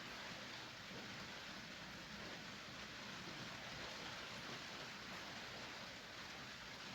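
Steady rainfall, an even hiss of falling rain with no lulls or gusts.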